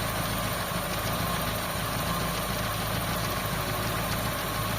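Toyota GLI's 4A-FE four-cylinder engine idling steadily while it warms up.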